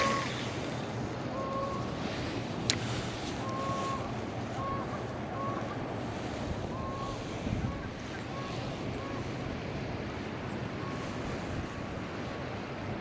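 River water rushing steadily, with wind buffeting the microphone. Short faint squeaky tones recur every second or so, and there is one sharp click about three seconds in.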